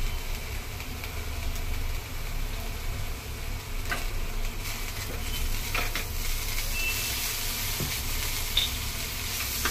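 Shredded boiled chicken sizzling steadily in a hot non-stick frying pan, with a steel spoon stirring and scraping it against the pan near the end.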